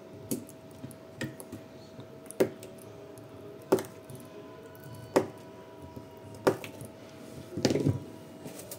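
Spot welder firing onto NiCd battery cells: six sharp snaps about a second or so apart, then a longer crackling burst near the end. A faint steady tone runs underneath.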